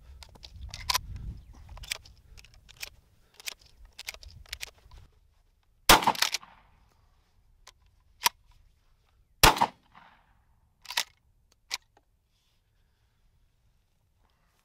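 Rock Island All Gen 12 pump-action shotgun being loaded and cycled. First comes a quick run of small metallic clicks as shells are pushed into the tube magazine. Then the pump is worked several times with sharp metallic clacks, the loudest about six and nine and a half seconds in. The action is being cycled to check a feeding fault, in which the shell is fed into the chamber at an angle.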